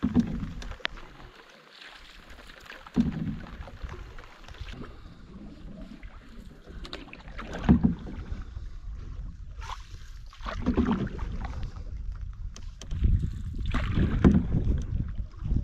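Canoe paddle strokes: a wooden paddle pulling through lake water about every three seconds, each stroke a swishing splash with a light knock.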